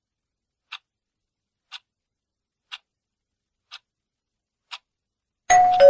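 Quiz countdown timer ticking faintly once a second, five ticks, then near the end a louder electronic two-note falling tone as the count runs out.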